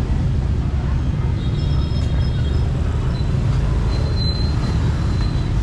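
Steady low rumble of passing street traffic, with faint high-pitched tones in the middle.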